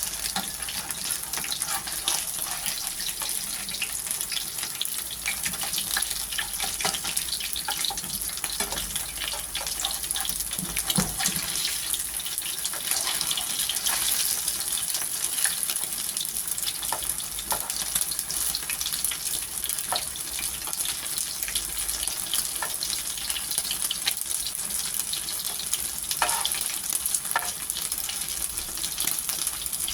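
Ukoy, anchovy fritters, deep-frying in hot oil: a steady sizzle with many small crackles and pops throughout.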